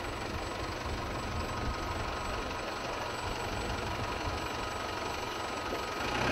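Steady roar of jet engines running on an airfield flightline, with a thin high turbine whine held throughout; it grows louder right at the end.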